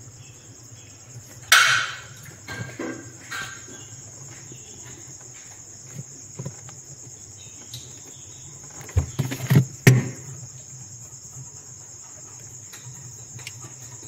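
Crickets chirring steadily in the background over a low hum, with short rustles and clicks of hands twisting and taping wire joints, loudest about a second and a half in and again around nine to ten seconds.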